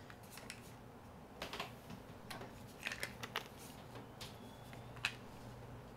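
Plastic pill bottles being handled, giving a series of light, irregular clicks and taps from about a second and a half in.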